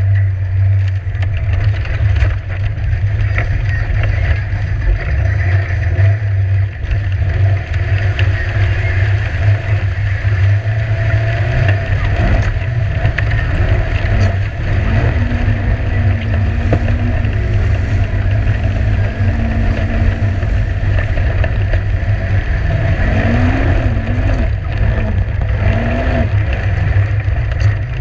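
Polaris RZR 1000 side-by-side's parallel-twin engine running under load through a creek crossing, with water splashing against the machine. In the second half the engine note rises and falls again and again as the throttle is worked.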